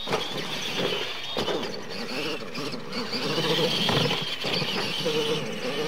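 Electric radio-controlled monster trucks racing on dirt: a wavering high-pitched whine of motors and gears rising and falling with the throttle, with knocks and clatter as the trucks hit ramps and land.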